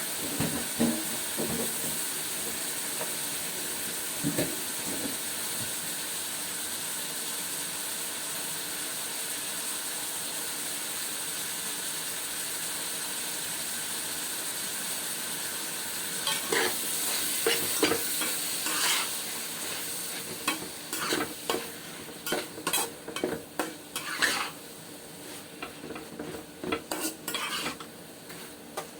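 Pork belly frying in oil in a pan with a steady sizzle. From about halfway, a utensil scrapes and knocks against the pan many times as the pork is stirred.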